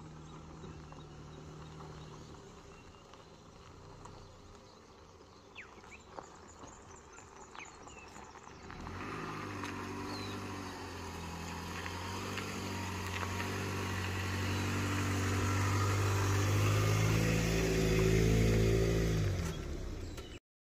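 SUV engine towing a loaded kayak trailer as it pulls away and drives past: the engine comes up suddenly about nine seconds in and gets steadily louder as the vehicle approaches, loudest near the end.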